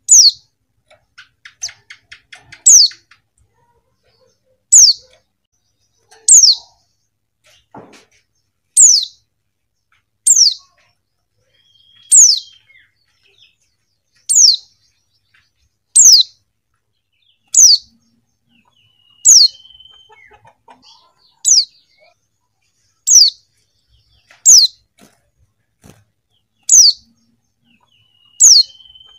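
Female white-eye (pleci) calling: a short, high call that falls sharply in pitch, repeated about every one and a half to two seconds, with a faint level whistle now and then between the calls.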